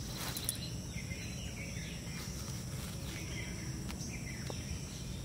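Forest ambience: small birds chirping now and then over a steady high insect drone, with a couple of faint clicks.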